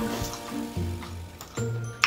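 Background hip-hop instrumental music with a deep bass line and no speech.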